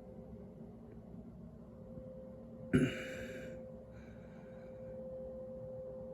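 A steady, unchanging tone from an unidentified source that the recordist takes for some sort of machinery. A short, sharp noise breaks in about three seconds in, with a fainter one a second later.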